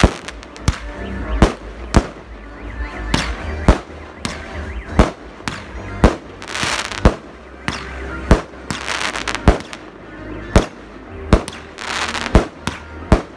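Aerial fireworks going off in quick succession: sharp bangs about once or twice a second, with a few short spells of crackling from crackle-effect bursts.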